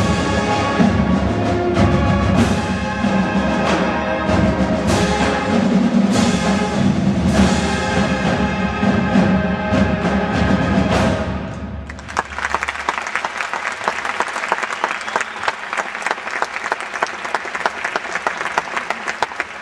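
Marching band playing with brass and percussion, with strong drum strokes, until the music ends about eleven seconds in. Then a crowd applauds.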